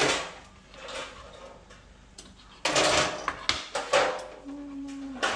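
Kitchen knife cutting raw chicken wings on a plastic cutting board: several sharp knocks of the blade on the board, most of them in a cluster about three seconds in. A short steady tone sounds near the end.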